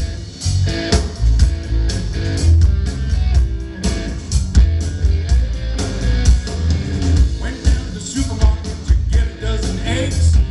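Blues band playing live, an electric bass and a drum kit keeping a steady, heavy beat.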